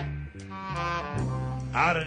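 Live blues band playing the slow opening of a blues number: long held notes over steady bass notes, with a bending note near the end.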